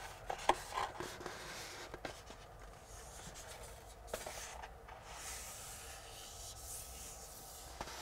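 Faint rustling and rubbing of a rolled paper backscene being held and shifted against a pasted wall, with a few light ticks and crackles of the paper, the sharpest about half a second in.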